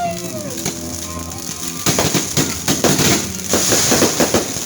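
Fireworks finale: a falling whistle near the start, then from about two seconds in a rapid run of bangs and crackles.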